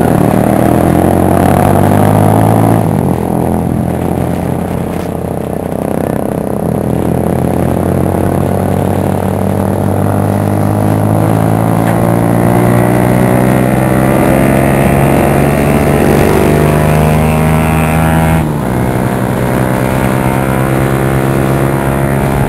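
Modified Kawasaki Barako 175 single-cylinder four-stroke motorcycle engine running under way. Its pitch climbs slowly and steadily as it accelerates, and falls suddenly about three seconds in and again about eighteen seconds in.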